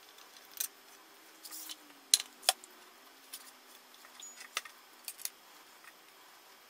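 Aluminium tripod parts of a Zomei Q555, its center column and ball head, clicking and clinking as they are fitted back together and the bottom screw is tightened. A scatter of short, sharp clicks, the two loudest a little over two seconds in.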